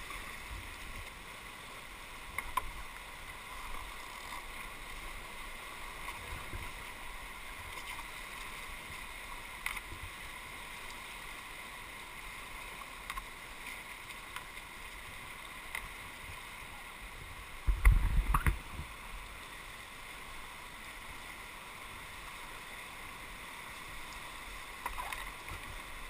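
Whitewater rapids rushing steadily around an inflatable kayak, with a few short knocks and splashes from paddling. A loud low thump comes about two-thirds of the way through.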